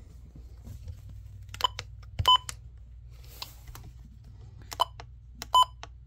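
Midland weather alert radio's keypad beeping as its arrow buttons are pressed: four short beeps, two close together early on and two near the end, with faint button clicks and a low steady hum.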